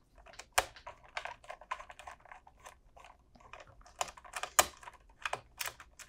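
Small screwdriver backing a screw out of a Qolsys IQ Panel 4's plastic housing: a run of light, irregular clicks and taps as the bit turns and the panel is handled.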